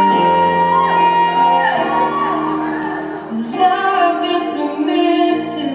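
Live band music with wordless singing: a voice holds long notes and slides between them over sustained chords and a stepping bass line.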